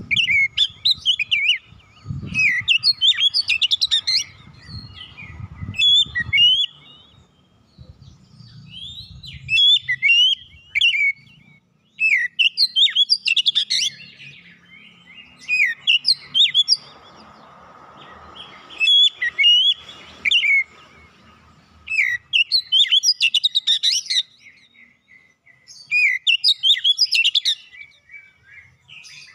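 Oriental magpie-robin (kacer) singing in repeated bursts of rapid, varied whistled phrases, each a second or two long with short pauses between.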